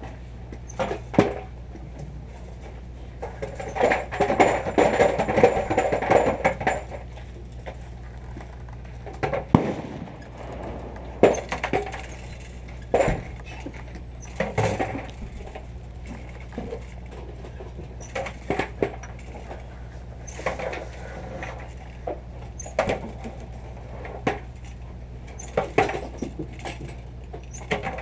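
Scattered sharp clicks and clinks of handling at a shooting bench, with a denser stretch of clatter about four seconds in, over a steady low hum.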